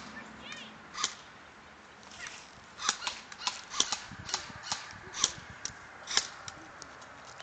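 Airsoft guns firing: a string of sharp, irregular pops, one near the start and one about a second in, then a dozen or so in quick succession between about three and six and a half seconds in.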